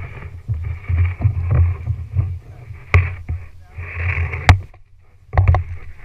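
Kayak paddling: a rumbling, splashing noise as the paddle works, with a few sharp knocks in the second half.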